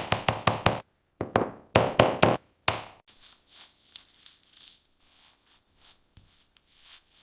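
Two quick runs of sharp knocks, about six in the first second and five more after a short pause, then fainter scattered ticks.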